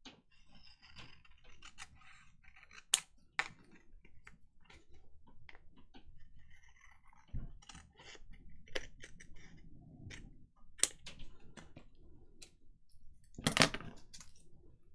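Paper and card pieces being handled and pressed into place on a craft table: scattered rustles with light clicks and taps, and a louder knock near the end.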